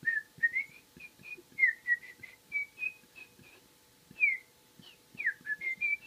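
A man whistling a rapid run of short, high chirps with a few quick falling slides, imitating the high-pitched squeaking, computer-chatter noise he hears from his computer, which he likens to a dial-up modem.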